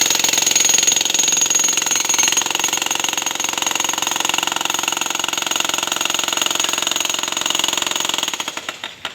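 Makita electric demolition hammer running continuously, breaking into a concrete column with rapid, even blows; near the end the blows slow and stop.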